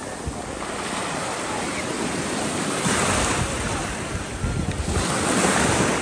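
Mediterranean surf washing and breaking around the legs in shallow water, with wind buffeting the microphone. The wash swells louder about three seconds in and again near the end.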